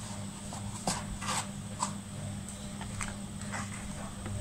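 Cardboard product boxes being handled: a few light taps and scuffs of paperboard against hands and table, over a faint steady hum.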